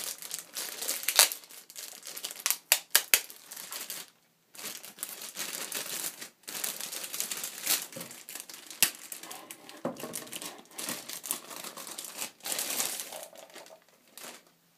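Clear plastic bag crinkling as it is handled and pulled off an audio interface, in uneven crackles with a short pause about four seconds in. It grows quieter near the end.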